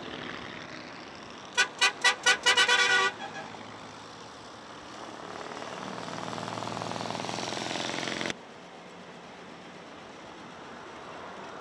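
A car horn tooting in a quick run of about seven short honks, the last one held a little longer, over steady traffic noise. A few seconds later a vehicle engine grows louder as it passes, then cuts off suddenly.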